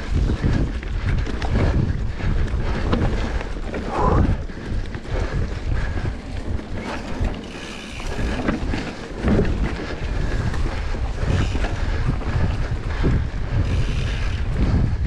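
Wind buffeting the microphone, a loud gusting rumble that rises and falls throughout.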